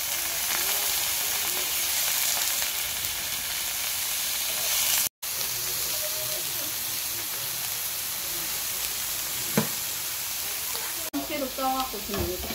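Slices of hanwoo beef frying in a nonstick pan, a steady hiss of sizzling that breaks off for a moment about five seconds in and then carries on with garlic and onion in the pan. A single sharp click comes near ten seconds.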